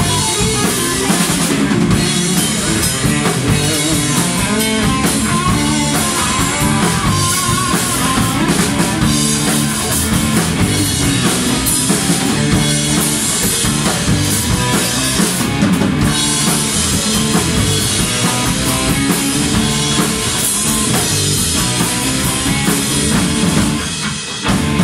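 Live rock band playing loud through its amps, with electric guitar, bass guitar and drum kit keeping a steady beat. The song comes to a close near the end.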